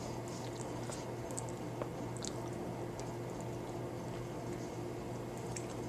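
A person chewing a bite of Lunchables pizza, with faint scattered wet mouth clicks and smacks, over a steady low electrical hum.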